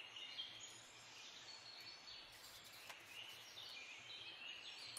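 Near silence: faint room tone with faint bird chirps.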